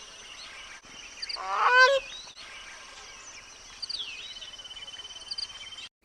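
Gray crowned crane giving one loud honking call about a second and a half in. Faint high chirps of small birds and a thin steady trill sound in the background.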